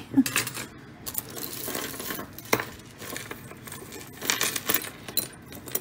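Metal costume jewelry clinking and jangling as pieces are handled, in several short bursts, with a single sharp click about two and a half seconds in.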